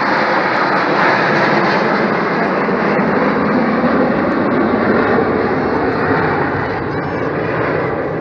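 A formation of Aermacchi MB-339 jet trainers flying past overhead, their turbojet engines making a loud, steady noise that eases slightly near the end.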